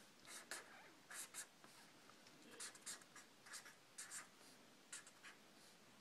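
Felt-tip marker writing on paper: a string of short, faint scratches at an irregular pace as letters and symbols are drawn stroke by stroke.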